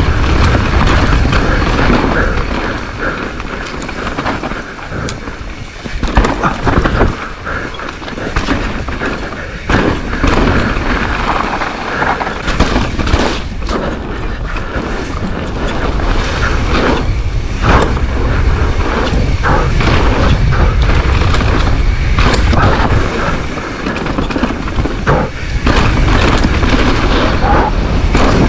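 Wind buffeting the helmet camera's microphone with a low rumble as a mountain bike descends a dirt forest trail. Tyres roll over dirt and leaves, and the chain and frame rattle over bumps in frequent short knocks.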